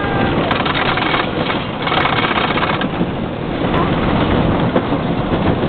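The Beast's wooden roller coaster train running along its track: a loud, steady rumble with a few faint clicks.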